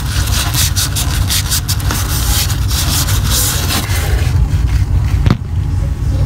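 Paper towel rubbing against the coils inside a Vaillant boiler's heat exchanger, in quick repeated wiping strokes for about four seconds, with a single click a little after five seconds. A steady low rumble runs underneath.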